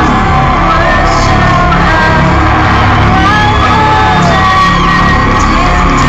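Hard techno DJ set playing loud and steady over a festival sound system, with crowd shouts and whoops mixed in.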